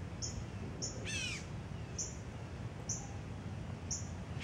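Birds calling: a short high chip repeated about once a second, with a quick run of falling notes about a second in and again near the end.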